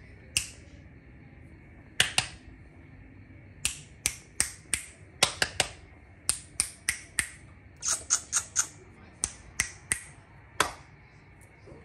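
Finger snapping: about twenty sharp snaps at an irregular pace, with a quick run of several about two-thirds of the way through.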